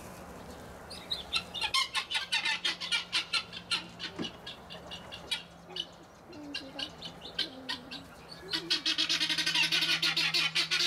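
Birds chirping in quick runs of short high calls, with a lull in the middle and denser chirping near the end.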